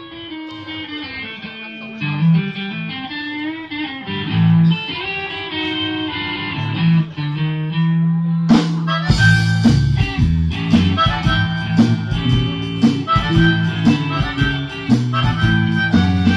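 A live band's instrumental intro: harmonica melody over guitar. About eight and a half seconds in, the full band comes in with a steady beat and a heavier bass line.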